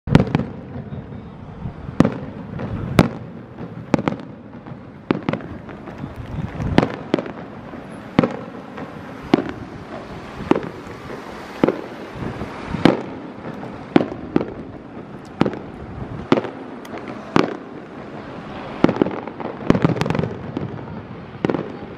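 Aerial firework shells bursting in a steady series of sharp bangs, about one a second.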